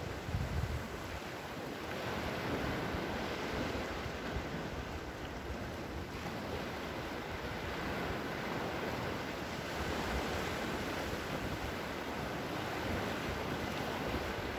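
Small waves breaking and washing steadily onto a sandy shore, with wind buffeting the microphone in low rumbles, strongest about a second in.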